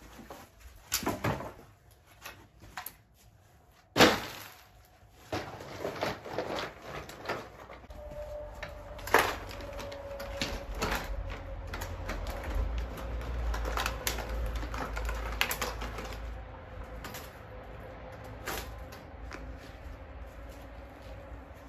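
Armful of dry branches dropped with a loud crack about four seconds in, then branches knocking, snapping and scraping as they are laid into a wooden raised bed lined with plastic dimpled membrane, as the woody base layer of a hugelkultur bed.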